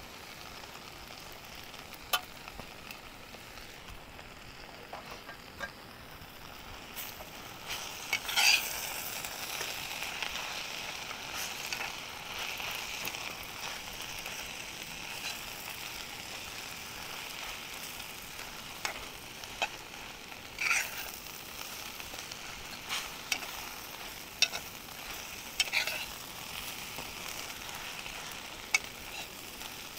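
A leafy vegetable sizzling softly in a pan, with a spatula scraping and knocking against the pan about ten times. The hiss swells for a while after the strongest scrape, about eight seconds in.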